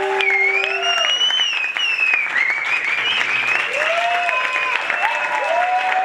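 Audience applauding steadily, with whistles and cheering voices rising and falling over the clapping.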